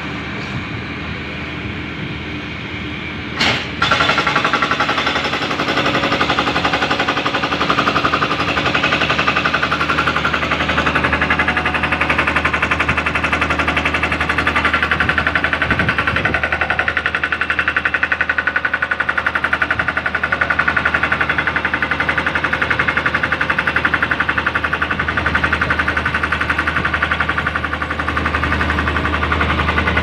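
Single-drum road roller's diesel engine running steadily. About three and a half seconds in there is a sharp click, and then a rapid, even rattling pulse starts and runs on.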